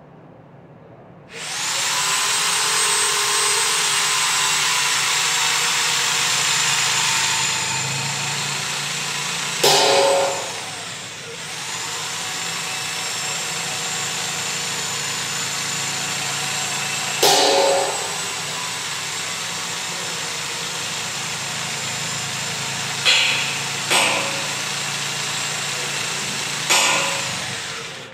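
A power tool running steadily at a high pitch, starting about a second in. Five sharp knocks with a short ring cut through it.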